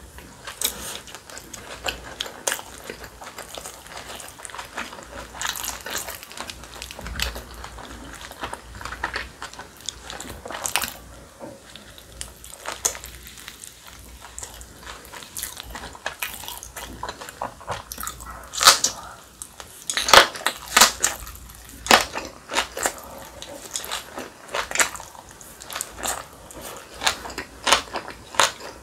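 A person eating close to the microphone: wet chewing and crunching of a dumpling and spicy green onion kimchi, a rapid run of sharp crackles and clicks, louder and denser about two-thirds of the way through.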